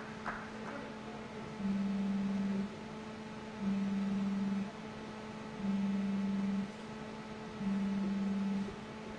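A low electronic beep, about a second long, repeating every two seconds, four times, over a steady electrical hum.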